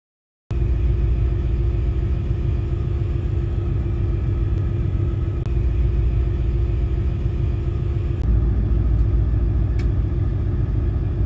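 Steady low rumble of a boat under way under tow, starting suddenly about half a second in, with a faint steady hum running through it and a few faint ticks.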